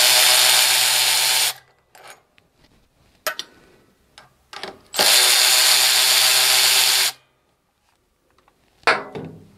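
Cordless electric ratchet running twice, each time for about two seconds, spinning out the two 5/16-inch (8 mm) carburetor mounting fasteners; a few light metallic clicks in between and near the end.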